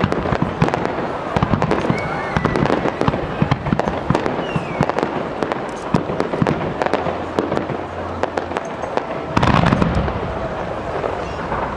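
Fireworks display: rapid, continuous bangs and crackling from bursting shells, with a louder cluster of bursts about nine and a half seconds in.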